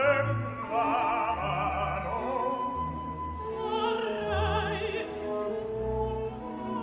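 Operatic duet singing with orchestral accompaniment: a mezzo-soprano and a bass-baritone, the upper voice singing held notes with clear vibrato. The narrator offers it as an example of singing that lacks legato, with the notes not leading fluently into one another, though not to an extreme degree.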